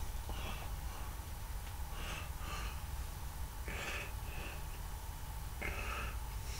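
A person's breathing and sniffing close to the microphone, in about six short puffs, over a low steady hum.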